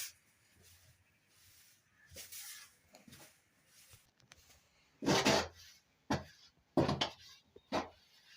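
Plastering trowel scraping plaster across a wall in short strokes: a few faint ones early, then louder strokes about five, six, seven and nearly eight seconds in.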